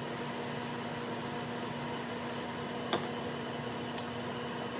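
A hand-held oil sprayer hisses for about two and a half seconds as olive oil is misted over raw potato slices, then stops. A steady low hum runs underneath, and there is one light click about three seconds in.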